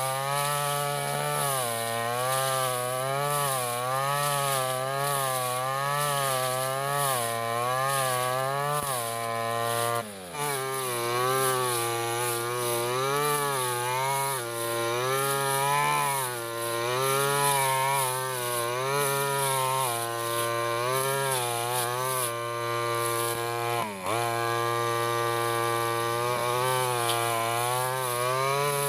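Stihl FR 3001 backpack brush cutter engine running hard while cutting tall lalang grass, its pitch rising and falling about once a second as the blade swings through the grass under load. The engine speed drops sharply twice, about ten seconds in and again near twenty-four seconds, then picks back up.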